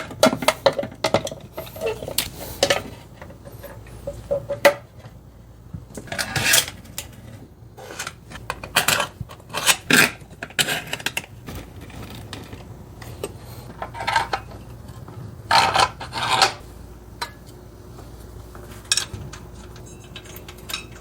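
Metal engine parts and hand tools clinking, clanking and scraping at irregular intervals, with a few louder clanks around the middle.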